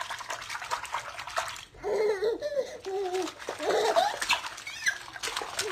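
Soapy bathwater in a kitchen sink splashing and slapping as a toddler's hands move through it, in repeated small splashes. From about two seconds in, a high voice babbles and squeals over the splashing.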